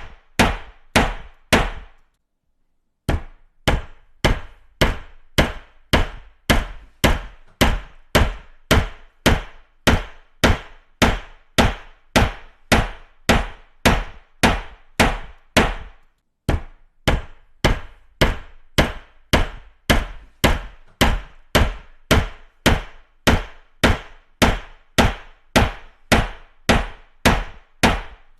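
Hammer striking repeatedly in a steady rhythm, about two to three sharp blows a second, each ringing off quickly. The blows stop for about a second a couple of seconds in, and pause briefly near the middle.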